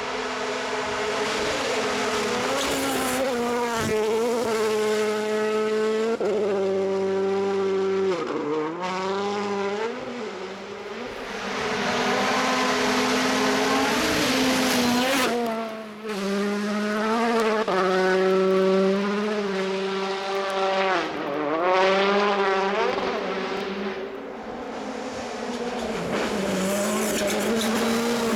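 Hyundai i20 Coupe WRC rally car's turbocharged four-cylinder engine at full effort on gravel, revs climbing and falling sharply again and again through gear changes over a series of passes.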